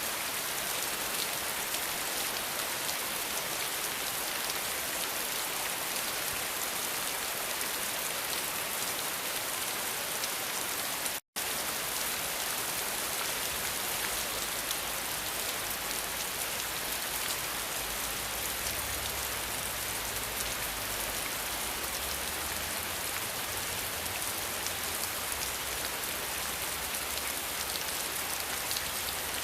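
Steady rain falling, a dense hiss of drops. The sound drops out for an instant about eleven seconds in, and after that a low rumble runs under the rain.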